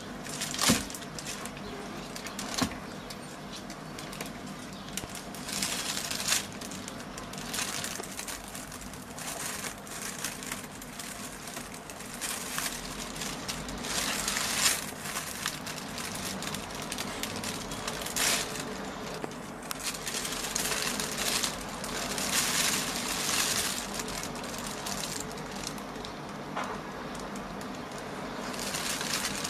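A red-eared slider turtle scrabbling into a shelf: its claws and shell knock a couple of times early on, then a plastic bag crinkles and rustles in irregular bursts as the turtle clambers over it and the boxes beside it.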